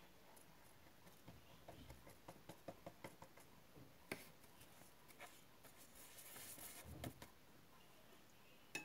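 Faint small clicks and taps from a paintbrush being worked in a watercolour paint tray, a quick run of them early on then a sharper single click, followed by a brief rustle of hands and paper and one last click near the end.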